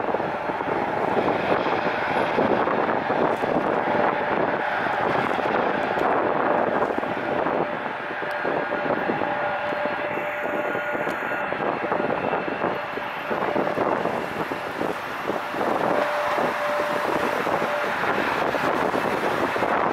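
Twin-engine widebody jet, a Boeing 787, at takeoff thrust on its takeoff roll: a steady, distant jet roar, mixed with wind on the microphone.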